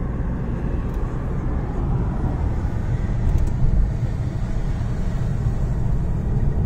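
A car driving slowly through city streets, heard from inside the cabin: a steady low engine and road noise.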